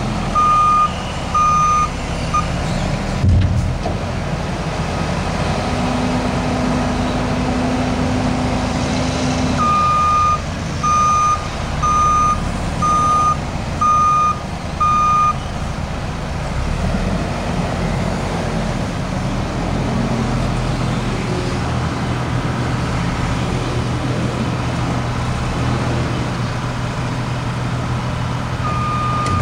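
Snow-plough vehicle's engine running and changing pitch as it works, with its reversing alarm beeping in runs of about two beeps a second while it backs up: at the start, again for several seconds midway, and once more at the end. A single sharp thump sounds about three seconds in.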